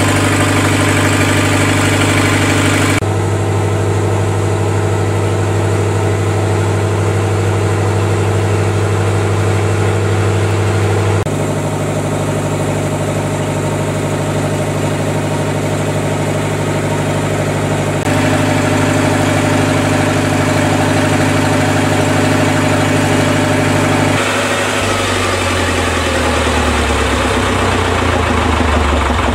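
Lister four-cylinder diesel generator set running steadily, a constant low engine drone. Its tone changes abruptly several times, about three seconds in, near the middle and again near the end.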